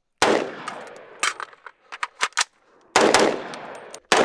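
Sig Sauer Rattler short-barrelled rifle firing three spaced single shots, each a sharp crack with a long ringing tail, with fainter sharp cracks between them.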